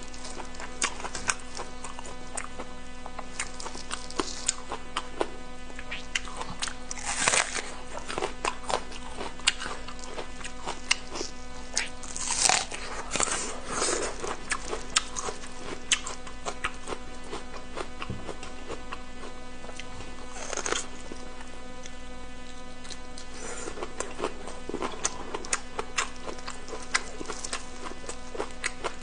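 Close-miked eating of pig intestine with raw green onion: irregular wet chewing, biting and crunching, with the densest, loudest bites about a quarter of the way in and near the middle.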